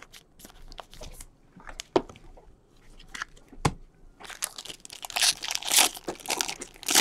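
Trading card pack wrapper being crinkled and torn open by hand, dense and loudest over the last few seconds, after a few scattered light clicks and taps as cards and packaging are handled.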